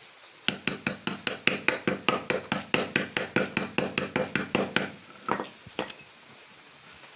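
Rapid hammer blows, about six a second for some four seconds, ringing metal on metal as a new 6203 ball bearing is knocked into a motorcycle rear wheel hub, then two last separate blows.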